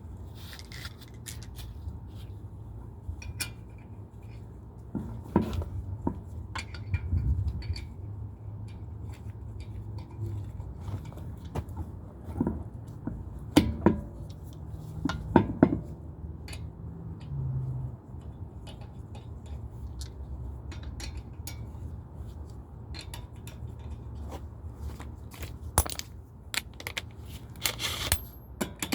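Scattered metal clinks, knocks and scrapes of a car wheel being refitted by hand and its lug nuts handled, over a low steady hum. The loudest knocks come a little before the middle.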